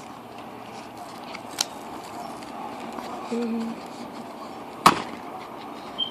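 Small cardboard candy box being handled and opened by hand: rustling, with a small click early and one loud sharp click or snap about five seconds in.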